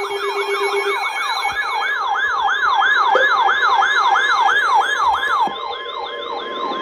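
Electronic yelp siren used as an emergency alert sound, its pitch sweeping rapidly up and down about four times a second. The sweep fades after about five seconds and a steady tone comes in.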